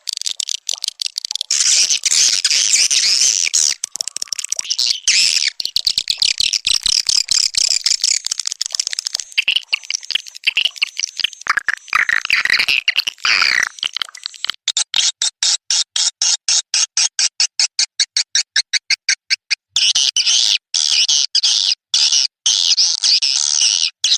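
Swiftlet lure-call track: dense, high chirping and twittering of swiftlets, played to attract them into a swiftlet nesting house. A little past halfway it switches for about five seconds to a rapid, even train of clicks, about nine a second, before the chirping resumes.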